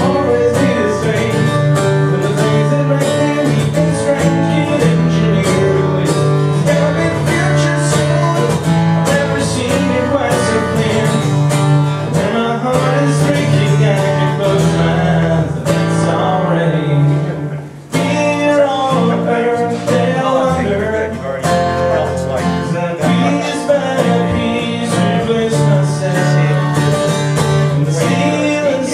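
Acoustic guitar music with singing. Partway through, about seventeen seconds in, it briefly drops away and breaks off, then carries on.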